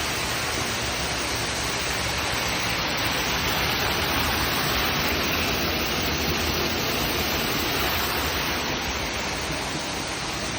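Underground cave waterfall: a steady rush of falling water.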